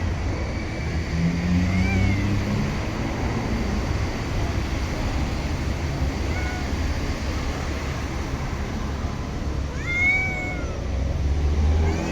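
A cat meowing several times in short arched calls, the loudest about ten seconds in, over a steady low rumble.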